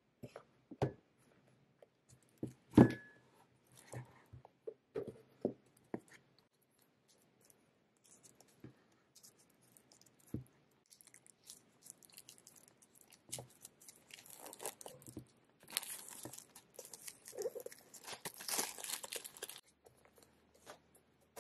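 Hardcover notebooks handled on a desk, setting off a scatter of taps and knocks, the loudest about three seconds in. Then plastic shrink wrap is picked at and peeled off a new journal, with crinkling and tearing for several seconds past the middle.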